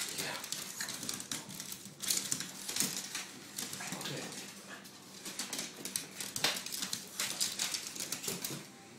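Small terriers' claws clicking and scrabbling rapidly on a hardwood floor as the dogs chase and wrestle, in uneven flurries of clicks.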